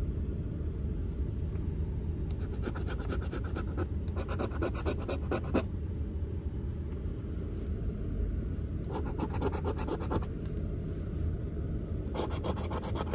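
A coin scraping the coating off a scratch-off lottery ticket in several bursts of quick rasping strokes, with pauses between them, over a steady low rumble.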